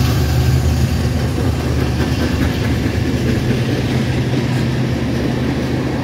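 Freight train cars rolling past on the rails: a steady low rumble of wheels and running gear, easing slightly over the few seconds.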